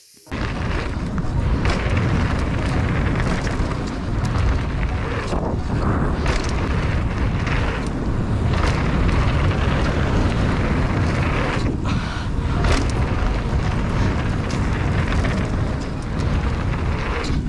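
Heavy wind rush on the microphone and rolling noise from a mountain bike riding fast down a dirt trail, with a few short knocks and rattles from the bike over bumps.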